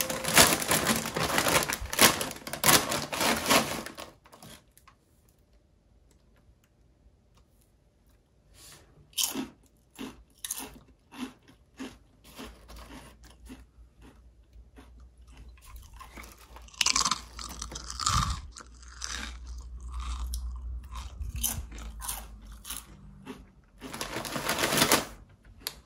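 A foil potato-chip bag crinkling as it is pulled open. After a few seconds of quiet, the chips rustle and crunch in the bag as a hand rummages through them, in scattered bursts that get busier near the end.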